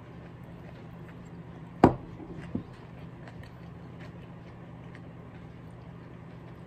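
A ceramic plate set down on a wooden table: one sharp clack with a short ring about two seconds in, then a lighter knock. Faint small clicks of chopsticks and tableware run over a steady low hum.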